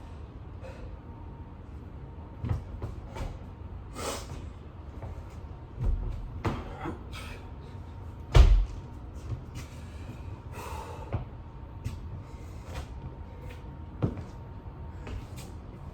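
A person doing burpees with push-ups on the floor: a series of dull thumps as hands and feet land, the loudest about eight seconds in.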